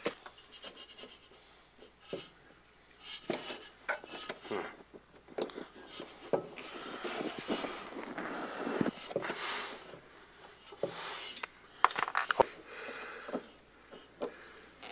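Small metal parts clicking and scraping under the fingers as a C-clip is worked onto a Fox-body Mustang's parking brake lever and cable, with stretches of rubbing and a quick cluster of clicks about twelve seconds in.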